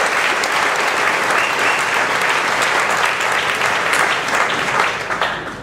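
Large audience applauding in an auditorium. The clapping dies away near the end.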